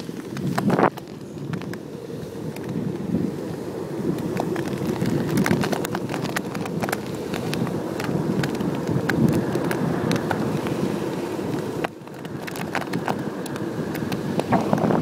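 Kite buggy wheels rolling over a sand beach strewn with shells: a continuous crunching rumble full of sharp cracks, with wind on the microphone. About 12 seconds in the crunching drops away briefly, then builds again.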